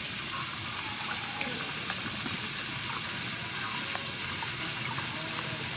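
Water sloshing and dripping as vegetables are washed by hand in a steel bowl, with scattered small splashes and drips.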